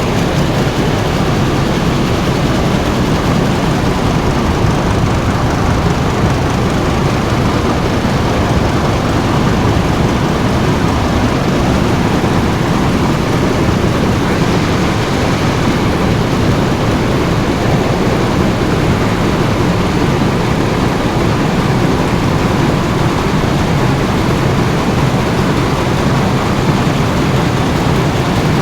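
Textile machine for sarees running with a loud, steady mechanical noise.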